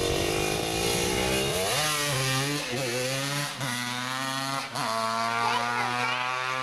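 Two-stroke engine of a Honda 370R quad (a big-bore TRX250R) revving hard under acceleration, the note climbing and then dropping back a few times as it shifts through the gears.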